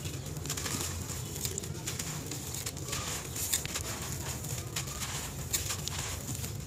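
Hands crumbling and squeezing a lump of compressed dry sand, with many small gritty crunches and grains falling. A steady low background sound runs underneath.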